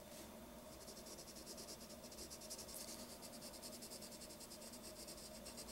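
Graphite pencil lightly shading on paper: a faint, steady scratching of quick, even little strokes.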